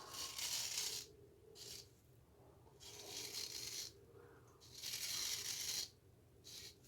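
Straight razor scraping through facial stubble in several strokes, each up to about a second long, with short pauses between them.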